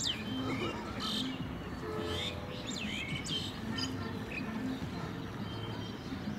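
Birds chirping and calling in quick, sweeping whistles, over a soft background music track of steady low notes.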